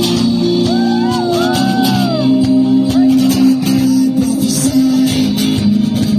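Background music led by guitar, with sustained chords and a few short gliding tones about a second in.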